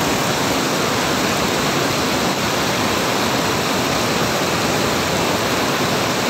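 Fast, muddy floodwater rushing across a road, a steady even rushing noise.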